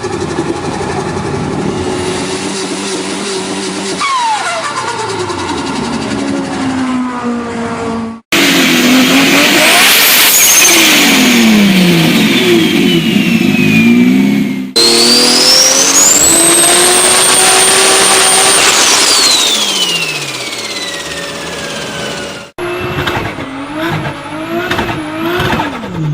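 Performance car engines revving and pulling away in several short clips cut together, their pitch rising and falling through the gears. In the two loudest clips a high whistle climbs and then falls away with the revs, the sound of a turbocharger spooling up and winding down. Near the end the engine note wavers quickly up and down.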